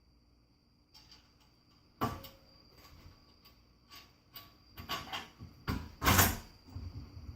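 Irregular metallic clunks and knocks from handling a winch mount, bolts and tools on a UTV's front bumper. The loudest clunk comes about six seconds in, with a faint steady high whine underneath.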